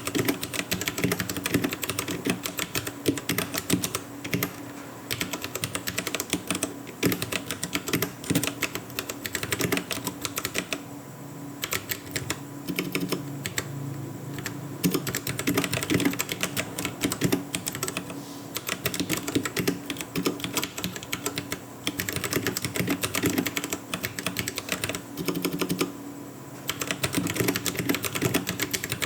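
Fast, continuous typing on a Royal Kludge RK84 mechanical keyboard with brown switches, a dense clatter of key strokes broken by a few brief pauses.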